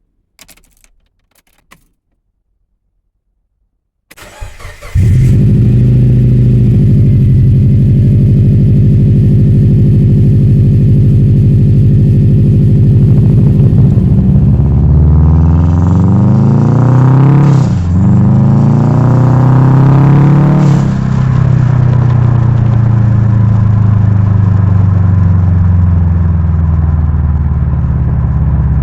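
Subaru flat-four boxer engine started after a few faint clicks: it cranks and catches about four seconds in, then idles steadily. About halfway through the revs climb, drop sharply, climb again, then settle into steady running, as the car pulls away and shifts through the gears.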